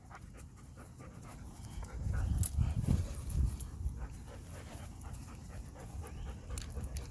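A dog panting, louder from about two seconds in.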